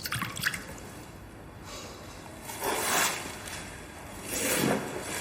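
Liquor being poured into a cup: a few light clinks at the start, then two short pours of liquid.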